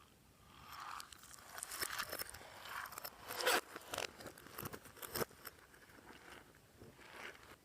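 Clear slime being squished and worked by hand, giving a dense run of crackling, crunchy pops and clicks. The crackling is loudest a few seconds in and thins out after that.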